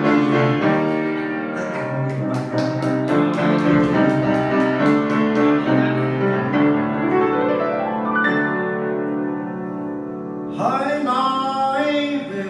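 Grand piano playing a slow ballad introduction, with a rising run of notes about seven seconds in. Near the end a man's voice comes in singing over the piano.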